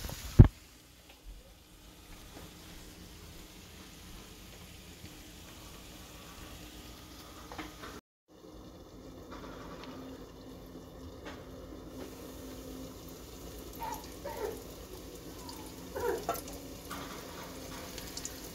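Soft, steady sizzling of potatoes frying in oil in a pan, with one sharp knock about half a second in. After a brief cut come a few handling clunks, and near the end coated chicken pieces start to crackle as they go into the hot oil.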